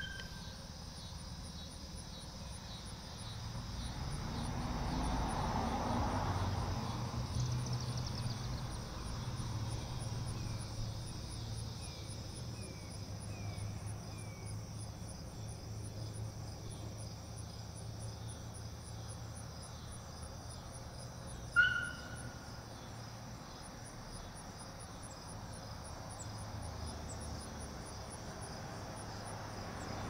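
Insects chirping in an even, steady pulse over a low steady hum from the Federal Signal STH-10 siren, its rotor still coasting down after the 2-minute alert. A low rumble swells and fades a few seconds in, and a single sharp click sounds about two-thirds of the way through.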